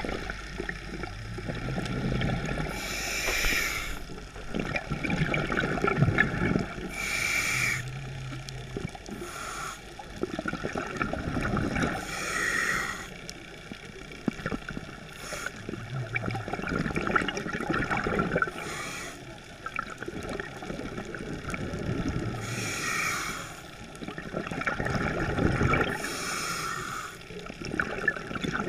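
Scuba diver breathing through a regulator underwater: a repeating cycle of hissing breaths and bubbling exhaust, about every three to four seconds.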